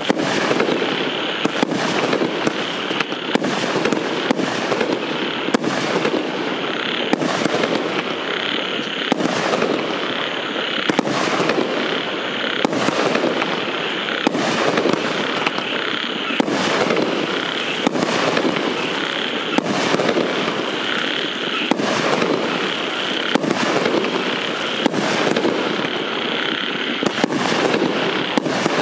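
A 25-shot 500 g consumer fireworks cake firing, with sharp shots about once a second over a steady hiss.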